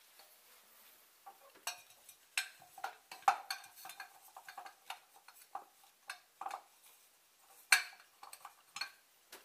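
Scattered small clicks and clinks of handling, then one sharper, louder click near the end: a wall rocker light switch being flipped on.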